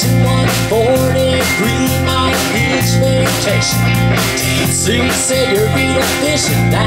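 Live band playing a country-rock song: electric guitars over bass and a drum kit with steady cymbal strokes, with a lead line bending up and down in pitch.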